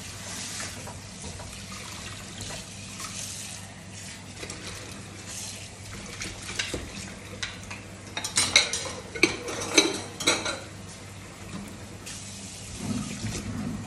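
Kitchen tap running into a sink while dishes are washed by hand, with a quick run of clinks and clatters of dishware from about eight to ten and a half seconds in.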